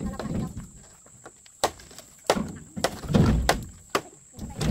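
A series of irregular knocks and thuds, several over a few seconds, heaviest about three seconds in.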